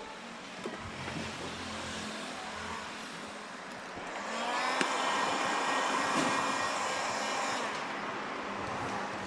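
Electric heat gun running, its fan blowing with a motor whine, used to warm tint film on a car headlamp. The blowing gets noticeably louder for about three seconds near the middle, then drops back.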